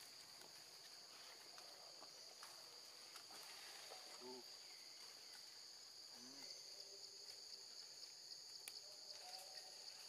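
Faint, steady high-pitched insect chorus droning without a break, with a couple of brief low calls about four and six seconds in.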